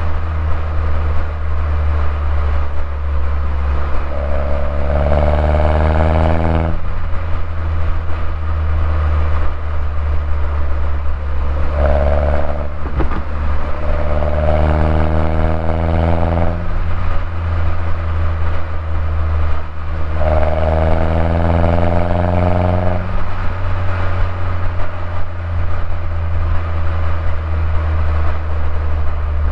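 2011 Mini Cooper S (R56) on its stock exhaust, its turbocharged 1.6-litre four-cylinder engine cruising over a steady low drone. Three times the engine pulls, its note rising in pitch and then cutting off suddenly, at about four, twelve and twenty seconds in.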